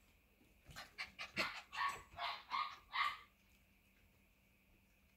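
Eight-week-old mini goldendoodle puppy barking: a quick run of about six high-pitched yaps over two seconds.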